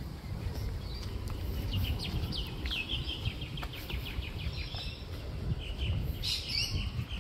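Birds calling: a fast run of short, high repeated notes in the middle, and a louder high call about six seconds in. A steady low rumble sits underneath.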